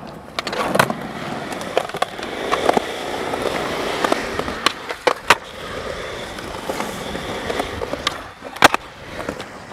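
Skateboard wheels rolling, broken by several sharp clacks of the board striking the ground. The loudest clack comes near the end.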